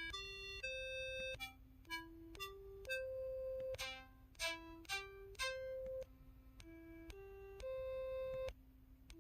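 KTF-TR2000 mobile phone's keypad button tones: a run of single electronic notes at different pitches, one after another like a simple tune. Some notes are held for under a second and others are short, fading blips.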